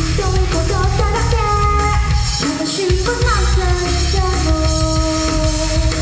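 A female vocalist sings live into a handheld microphone over loud backing music with drums, heard through a concert sound system. The bass drops out briefly about two and a half seconds in.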